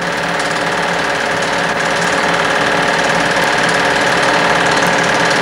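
Film projector running: a steady, even mechanical clatter from its motor and film-advance mechanism.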